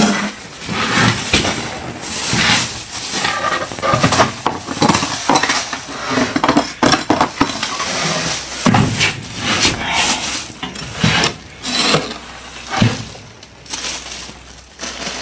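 Metal spoon and scraper scraping and crunching through thick frost build-up inside a freezer, in many short, irregular strokes.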